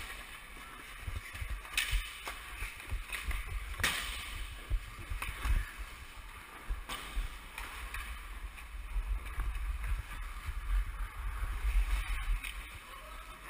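Hockey skate blades scraping and swishing on rink ice, with a few sharp knocks, about two, four and seven seconds in, and a low rumble from the body-worn camera moving.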